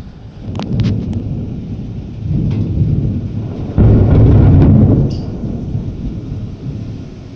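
Thunder during a thunderstorm: sharp crackles about half a second in, then a building rumble, then a sudden loud clap just before four seconds that holds for about a second and rumbles away.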